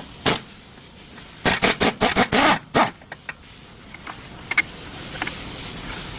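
A quick run of about seven sharp knocks or clatters within a second and a half, after a single knock just before them, then a few faint ticks.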